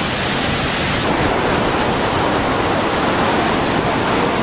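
Loud, steady rush of the Spokane Falls: river water pouring over the falls and churning below.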